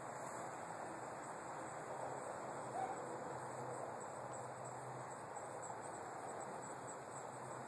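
Steady outdoor backyard ambience: an even wash of background noise with faint high, steady tones and a low hum, and one short chirp about three seconds in.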